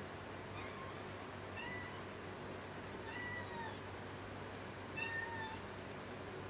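A cat meowing repeatedly: four short meows about a second and a half apart. The longest comes about three seconds in and the loudest about five seconds in.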